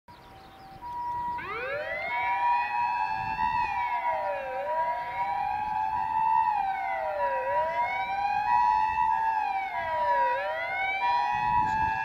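Electronic siren of a Japanese doctor car (physician response vehicle) sounding: a pair of steady high tones comes in under a second in, then a wail rises from low about a second and a half in and sweeps up and down roughly every three seconds over them.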